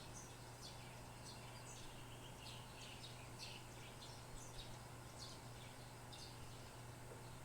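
Small birds chirping: short, high, downward-sweeping chirps repeated several times a second at irregular intervals, faint over a steady low hum.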